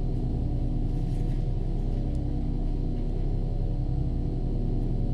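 Steady ambient drone of many sustained low tones, a soundscape accompanying a reading.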